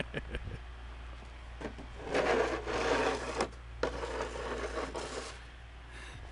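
Crunching, scraping noise of packed snow being trampled close to the microphone, in two stretches of about a second and a half each, after a few light knocks at the start.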